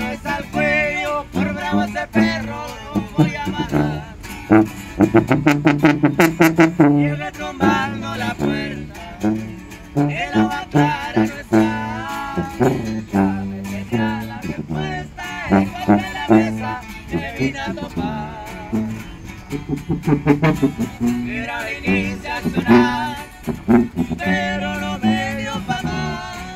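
A small street band playing a song: two strummed guitars, a sousaphone playing the bass line, and a man singing.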